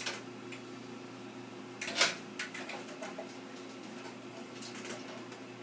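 Clicks and knocks of a CPU heatsink being set down and seated onto its mounting bracket, with one sharp clack about two seconds in, over a steady low hum.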